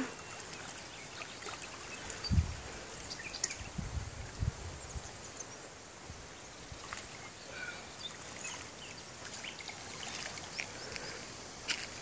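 Quiet riverbank ambience with faint water lapping at the shore and a few faint bird chirps, broken by low thuds about two and four seconds in.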